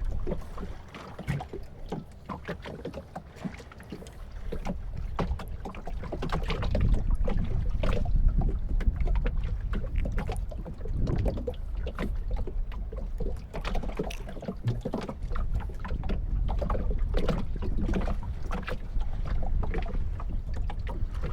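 Low rumble of wind and water around a small fishing boat, with scattered small knocks and clicks from the boat and gear. It grows louder about six seconds in.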